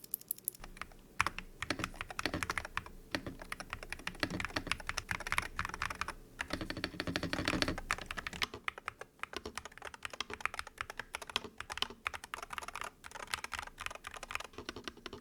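Typing demo on an Attack Shark keyboard with Outemu magnetic Hall-effect switches: a rapid, uneven stream of key presses and keycap clacks.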